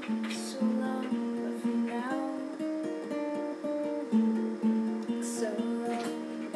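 Guitar playing a picked pattern of notes with a couple of strums, an instrumental bar between sung lines of a song.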